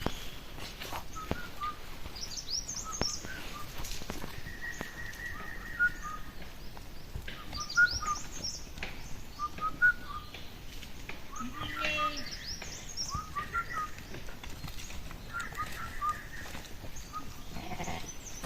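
Small birds chirping, with short high notes repeated on and off over a quiet outdoor background.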